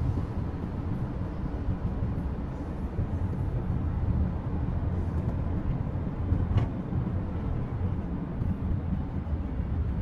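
Toyota HiAce Premio van heard from inside the cabin while driving: a steady low rumble of engine and road noise, with one brief click about two-thirds of the way through.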